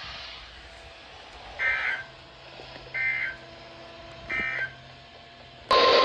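Three short warbling data bursts of an EAS end-of-message code, about a second and a half apart, closing the severe thunderstorm warning. Near the end, a loud steady alert tone over radio hiss cuts in suddenly: the 1050 Hz weather radio warning alarm that opens the next alert.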